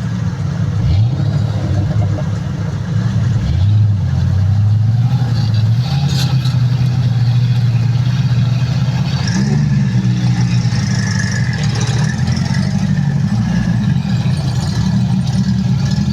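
Off-road 4x4 vehicle's engine running under way. Its pitch rises twice in the first few seconds as it accelerates, then holds fairly steady with small changes in revs.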